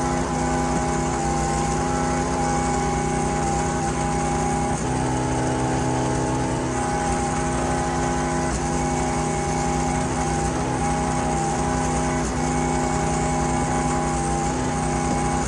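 Small gasoline engine of a wood-processing machine running steadily at a constant speed.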